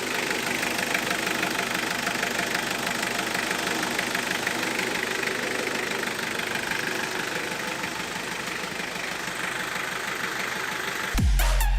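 1995 Mitsubishi L200 pickup's engine idling steadily with its new water pump fitted, running right. Loud electronic music cuts in near the end.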